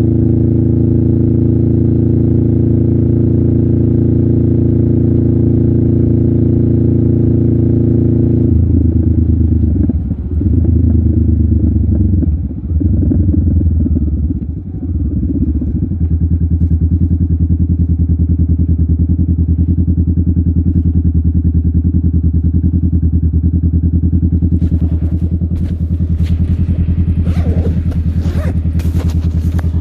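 Honda Rebel 500's 471 cc parallel-twin engine running through a Vance & Hines aftermarket muffler. It holds a steady speed, then the throttle is blipped a few times with rising and falling pitch, and it settles back to a steady idle. Clicks and scrapes sound over the engine near the end.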